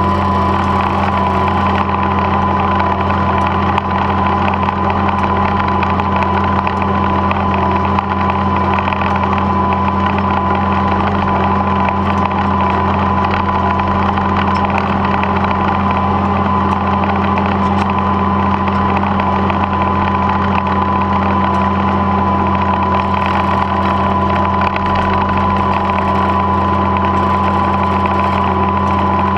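Old red tractor's engine running steadily while the tractor drives along, heard close up from the hood, with an even engine note and a steady high whine over it.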